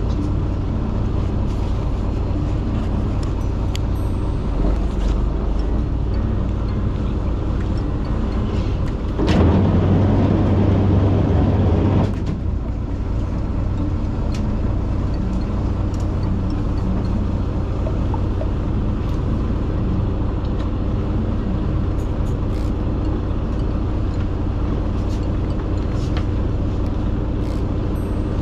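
Fishing boat's engine running steadily with a low, even hum. About nine seconds in, a louder rushing noise swells over it for about three seconds, then drops back.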